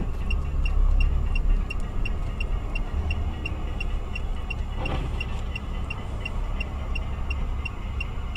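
Low rumble of a car sitting in traffic, heard from inside, with a steady high tick about four times a second throughout. A brief swell of noise comes about five seconds in.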